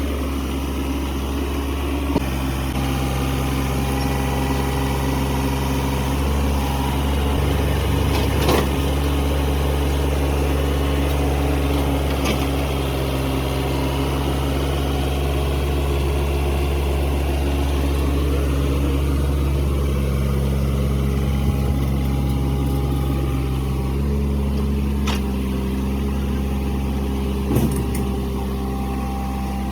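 Excavator's diesel engine running steadily under load while it works, with a few short sharp knocks, typical of the bucket striking as soil is loaded into a tipper truck.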